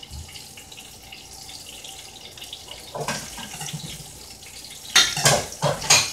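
Fish searing in a frying pan, a steady sizzle, under cupboard noises: a knock about three seconds in as the upper cabinet doors are opened, then loud clattering of dishes around five and six seconds in.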